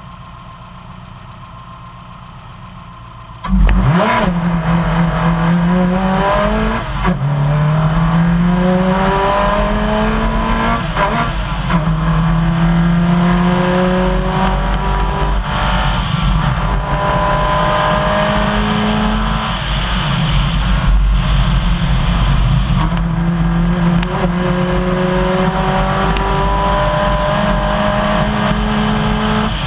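Subaru rally car's flat-four engine idling at the stage start, then launching hard about three and a half seconds in and accelerating flat out along a gravel road. Its pitch climbs through each gear and drops at every upshift, again and again.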